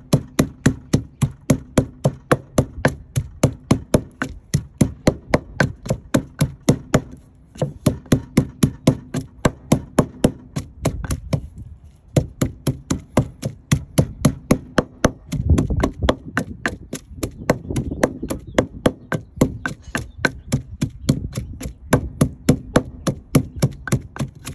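Wooden pestle pounding chili and garlic in a wooden mortar: fast, steady knocks about three to four a second, with two brief pauses.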